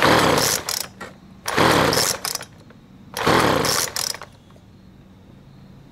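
Three pulls of the recoil starter rope on a 25cc two-stroke Craftsman/Poulan leaf blower, each a second-long whir of the engine turning over, about a second and a half apart. The engine doesn't catch, and it is quiet after the third pull.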